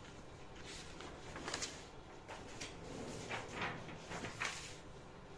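Faint scraping and rustling strokes of tailoring tools working over a coat pattern as it is measured and marked, about half a dozen at irregular intervals.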